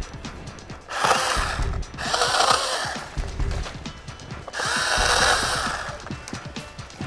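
Makita MUC101D 18V cordless handy chainsaw cutting branches in three bursts. The electric motor's whine dips as the chain bites into the wood and rises again between cuts.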